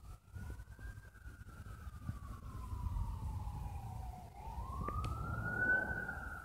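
Emergency-vehicle siren wailing, a single tone rising and falling slowly in long sweeps of about four seconds, over a low rumble.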